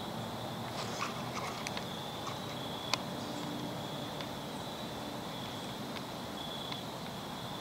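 Woodland ambience: a steady high-pitched insect drone over a soft hiss, with a few faint sharp ticks, the clearest about three seconds in.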